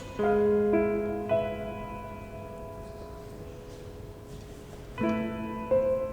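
Slow piano music: a few notes struck one after another at the start and left to ring and fade for several seconds, then another group of notes struck near the end.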